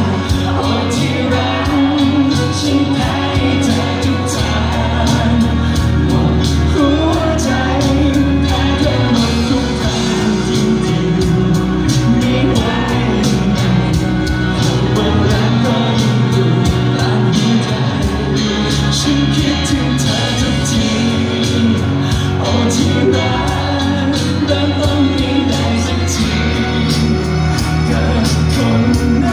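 Male singer singing a Thai pop song live into a handheld microphone over backing music with a steady beat, amplified in a large hall.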